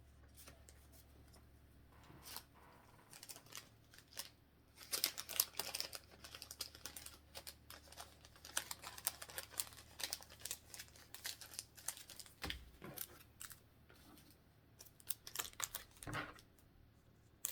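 Pokémon trading cards and a foil booster pack being handled: a run of quick rustles and small clicks, starting about four seconds in, pausing briefly, and picking up again near the end.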